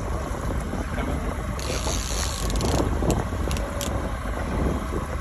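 Boat's outboard motor running steadily, with wind and water wash and a brief hiss about a second and a half in.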